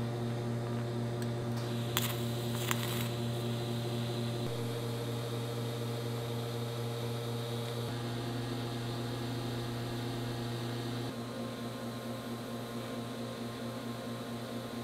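TIG welding arc humming steadily as billet caps are welded into the chassis tubing, its tone shifting a few times; a few sharp clicks about two to three seconds in.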